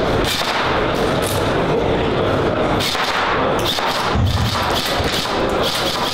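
Airsoft guns being test-fired, with irregular sharp shots and thuds over a loud, continuous hall din.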